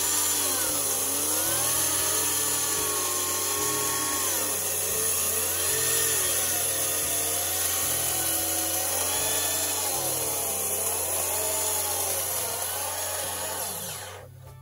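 Water-cooled ring saw cutting through a cinder-block wall, running steadily with a hiss of water spray, its pitch rising and falling every couple of seconds as it is worked in the cut. It stops abruptly near the end.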